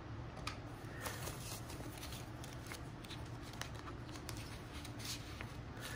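Paper money being handled, with faint rustling and a few scattered light clicks.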